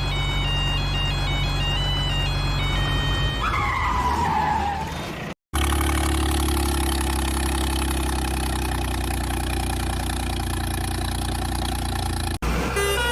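A beeping electronic melody over a low hum, then a pitch that glides downward. After a short break comes a steady truck-engine drone lasting about seven seconds, and the beeping melody returns abruptly near the end.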